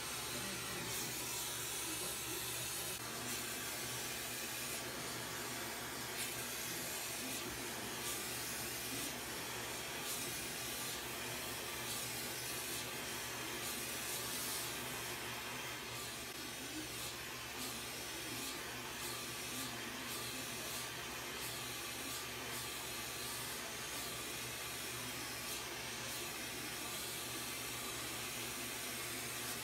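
Glassworking bench torch burning with a steady hiss as glass tubing is heated in its flame.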